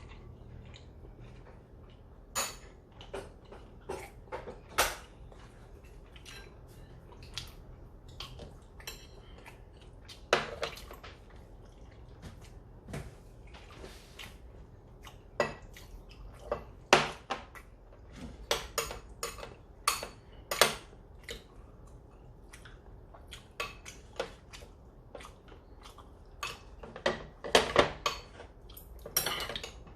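Eating utensils clicking and clinking against plates and bowls at a meal: irregular sharp taps scattered throughout, coming thicker near the end.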